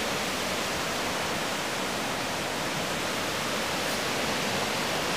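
Flood-swollen river rushing through rapids: a steady, even wash of water noise.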